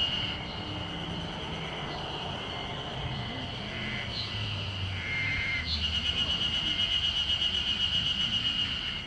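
Ezo spring cicadas singing in a fast, evenly pulsing chorus, softer at first and loud again from about six seconds in, with a few short high bird chirps around the middle.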